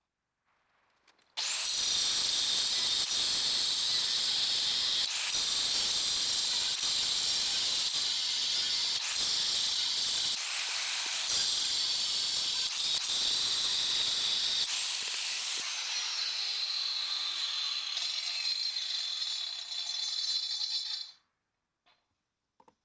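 Air impact wrench running in long bursts on a stuck rear hub nut: a loud, steady hissing rattle with a few short breaks where the trigger is let off, and a falling whine in the later part. The nut does not come loose. It stops suddenly near the end.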